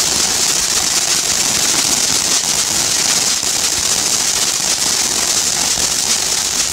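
A small Jonathan's Fireworks 'Gala' selection-box firework spraying sparks with a loud, steady, crackling hiss.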